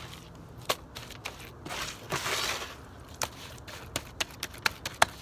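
Wet sand-and-Portland-cement mix scooped by gloved hands from a wheelbarrow and packed into a wooden frame: gritty scraping and crunching, with a longer scrape a little after two seconds in and many short sharp taps, more of them near the end.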